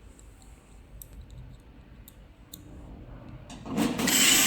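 Electric fireplace running with only the flame effect on: a few faint clicks, then a loud, rough mechanical noise about a second long near the end. This is the unwanted noise it makes in flame-only mode.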